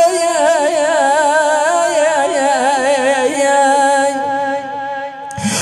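A man chanting a Shia Husseini mourning lament into a microphone: one long, wavering, ornamented vowel line with no clear words, broken by a short breath near the end before the next phrase starts.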